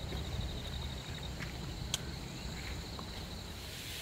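Outdoor ambience: an insect gives a rapid high-pitched pulsing trill for about the first second, over a steady low rumble, with a few faint clicks scattered through.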